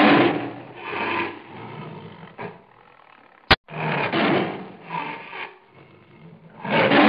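Lion roaring in a series of rough, grunting roars about a second apart. A sharp click cuts in about halfway through.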